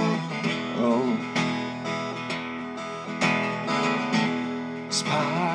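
Acoustic guitar strummed in a steady rhythm, about one stroke a second, under ringing chords, with the singer's voice coming in briefly about a second in and again near the end.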